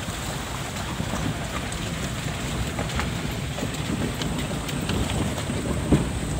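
Steady rushing wind and road noise from a moving car, picked up through an open window. There is one sharp knock about six seconds in.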